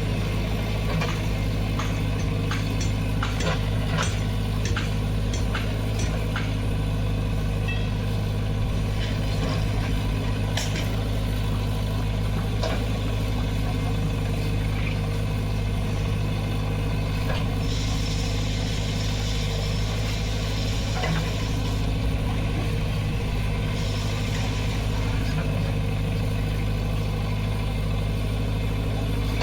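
JCB 3DX backhoe loader's diesel engine running steadily, with a run of sharp ticks and knocks in the first several seconds. Two stretches of hiss come about two-thirds of the way through.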